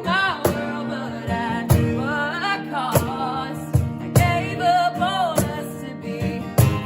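A woman singing a folky, country-influenced song with held, wavering notes over instrumental accompaniment, with sharp percussive hits throughout.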